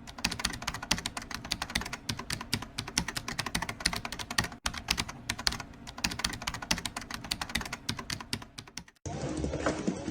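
Rapid, irregular clicking and tapping, like fast typing on a keyboard, with a brief break about halfway. Near the end it cuts abruptly to a duller, different sound.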